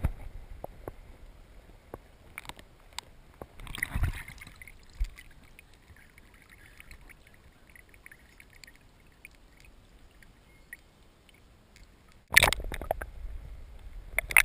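Water sloshing and splashing around a waterproof camera housing as it is dipped in and out of the water, with scattered clicks and knocks. It goes quieter in the middle, then a sudden loud plunge comes about twelve seconds in as the camera goes back under.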